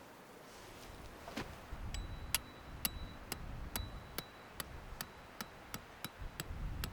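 Repeated hammer strikes on metal, about two and a half a second, starting about two seconds in. Several strikes leave a brief high ring.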